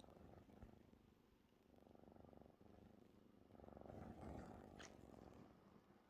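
A cat purring faintly, in two stretches of breath about two and four seconds in.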